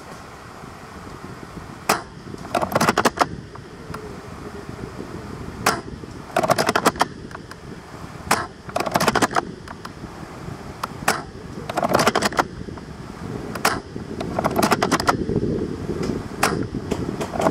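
Airsoft guns firing: short bursts of rapid sharp clicks, repeated every few seconds, with single shots between some bursts.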